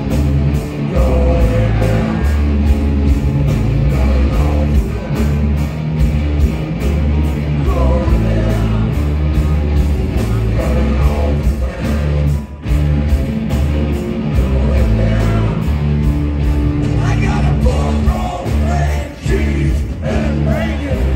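Rock band playing loudly: singing over a steady drum beat, bass and electric guitar.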